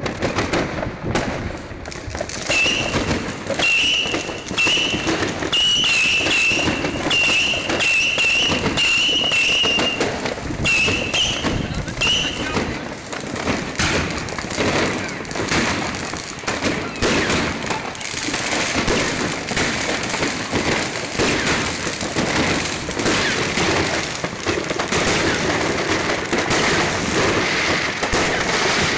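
Fireworks going off in a dense, continuous crackle of many bangs and pops. A high, wavering whistle comes and goes over it for about the first ten seconds.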